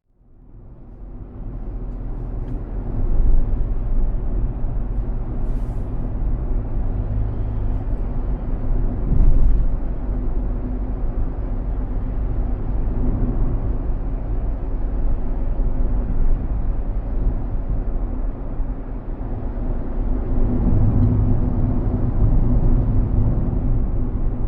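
Daihatsu Atrai RS 4WD kei van running on the road, a steady low engine and road rumble that swells a little about three and nine seconds in.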